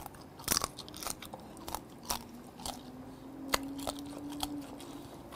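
Close-up crunching as steamed swimming-crab shell and legs are bitten and cracked between the teeth: about ten sharp, irregular cracks, loudest about half a second in and again around the middle, with chewing between them.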